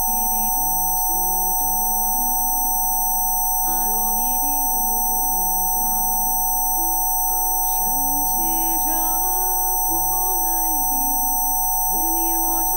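Rife frequency-therapy tones: several steady pure tones held without change, two close together in the middle range and a few thin, very high ones, laid over soft ambient music with slow, gliding notes.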